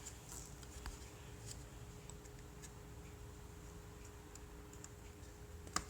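Faint, scattered plastic clicks and taps as hands press the two release tabs on a Graco DuoGlider stroller's front wheel, with one sharper click near the end, over a faint steady hum.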